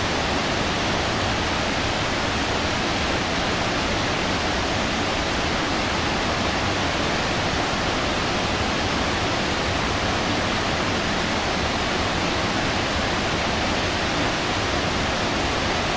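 Zambezi River white water churning through the Boiling Pot rapids below Victoria Falls: a loud, steady, unbroken rush of water.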